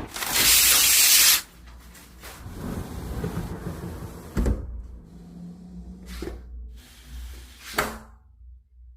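Road traffic noise coming through a window, with one loud passing rush at the start, then a sliding window being pushed shut with a thump and a couple of sharp knocks as it closes and latches, after which the room goes almost silent.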